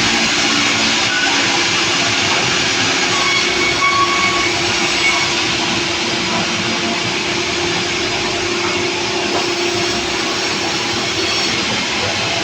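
Sawmill saw running steadily under power: a loud, continuous mechanical noise with a steady hum underneath.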